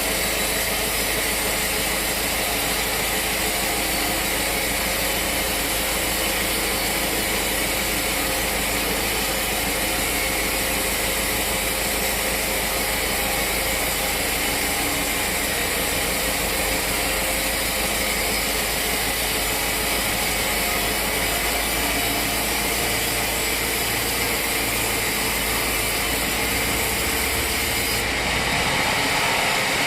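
Sawmill machinery running steadily in a loud, dense mechanical din, its tone shifting near the end.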